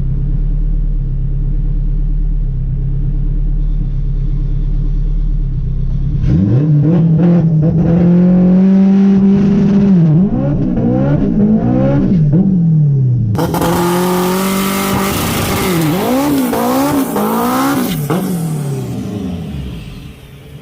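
Turbocharged Honda K20 four-cylinder engine idling, then revved up and held at high revs for a few seconds, then revved up and down repeatedly. A loud hiss sits over it for several seconds in the second half.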